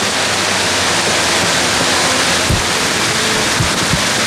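Steady, loud rushing of water, an even hiss with no change, with a few dull low thumps about halfway through.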